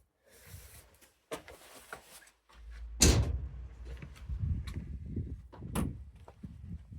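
Handling clatter from a chainsaw and petrol can being put down after refuelling: a short hiss near the start, scattered clicks and knocks, and one loud thump about three seconds in, followed by low rumbling handling noise and more knocks.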